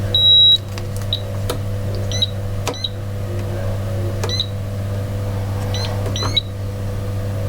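A short, high electronic beep, then a steady low electrical hum, with a few brief high chirps and light clicks over it.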